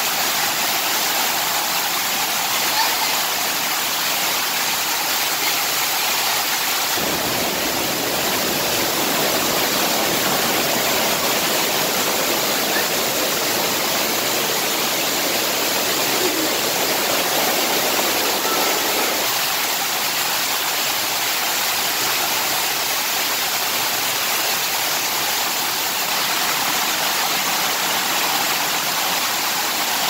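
Water rushing down a small waterfall cascade inside a stone tunnel: a steady, loud rush. For about twelve seconds in the middle it grows deeper and fuller.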